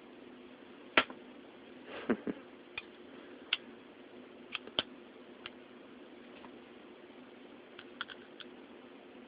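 Scattered small clicks and taps from the parts of a titanium-framed folding knife being handled and fitted together during reassembly. The loudest click comes about a second in, with a cluster near two seconds and a few more around eight seconds, over a faint steady hum.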